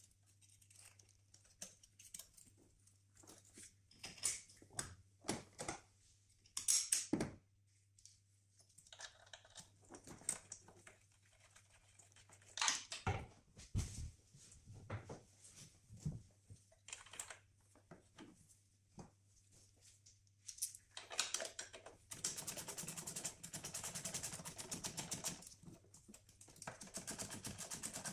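Hand tools and parts clicking and knocking in a car engine bay during hand work on the engine. Near the end come two runs of rapid clicking, the first about three seconds long and the second shorter.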